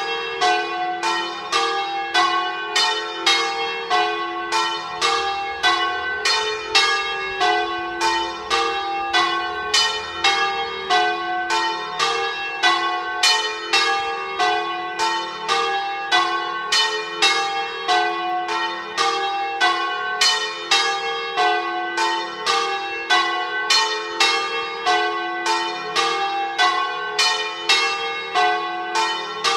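Church bells ringing together in a full peal: three bronze bells cast by Lera in 1924, tuned to a G-flat major scale and struck by electrically driven falling clappers, with a smaller 1957 De Poli bell. The strokes of several pitches come quickly and evenly, about two or three a second, without a pause.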